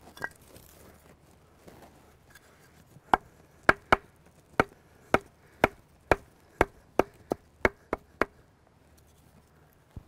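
A split wooden block pounding ephedra stems against a piece of wood, a run of about thirteen sharp knocks, roughly two a second, smashing the plant to release its juices for tea.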